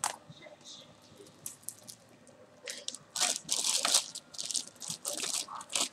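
Clear plastic bag crinkling and crackling in bursts as a replacement laptop keyboard wrapped in it is handled, starting about three seconds in.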